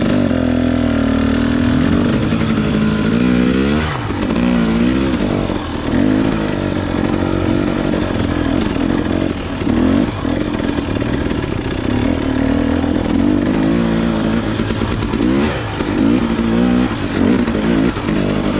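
Two-stroke 300 cc enduro dirt bike engine running under load, its pitch rising and falling again and again as the throttle is worked.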